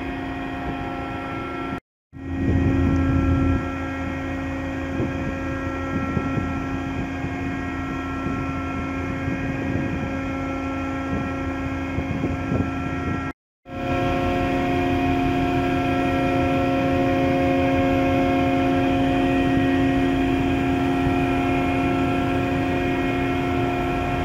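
Steady drone of a ship's machinery, a hum with several held steady tones. It drops to dead silence twice for a moment, about two seconds in and just past halfway.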